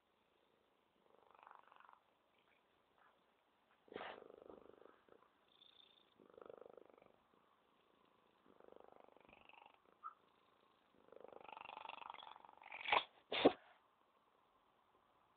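Domestic cat purring, the purr coming in soft rasping stretches with each breath every two to three seconds. Near the end come two short, sharp, louder bursts in quick succession.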